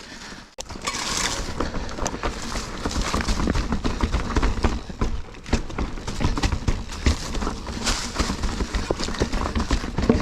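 Mountain bike clattering over a rocky trail: a dense run of irregular knocks and rattles from tyres striking rock and the bike shaking, over a low rumble.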